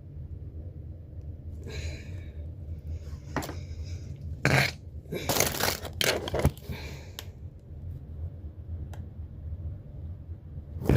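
Handling noises: several rustling, crinkling and scraping bursts between about two and seven seconds in, over a steady low hum.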